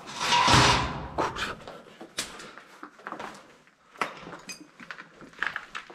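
Handling noise from a handheld camera as it is switched off: a loud rustling scrape in the first second, then scattered clicks and knocks.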